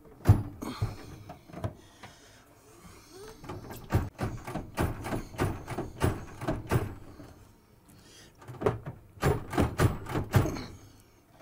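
Whirlpool MH7140XFB over-the-range microwave knocking and clunking against its wall mounting and the cabinet above as it is rocked and tugged to get it down. The knocks come in clusters: one sharp knock near the start, a dense run in the middle and another group near the end. The unit will not come free because a small locking clip still holds it.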